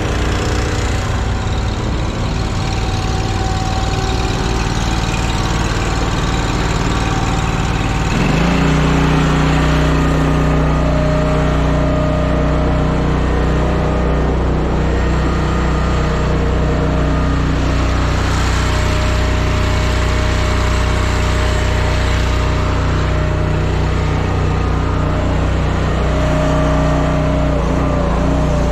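Small gas engine of a Timberwolf Alpha 6 hydraulic log splitter running steadily. About eight seconds in its pitch rises and settles at a higher, slightly louder steady note.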